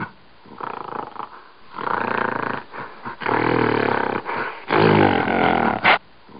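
A large animal roaring: three drawn-out roars of about a second each, each louder than the last, with a short sharp cry near the end.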